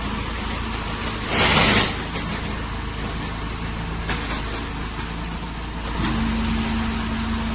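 Silage baling press running with a steady low machinery hum. A loud hiss lasting about half a second comes about a second and a half in, and a steady higher-pitched hum joins about six seconds in, making the machine louder.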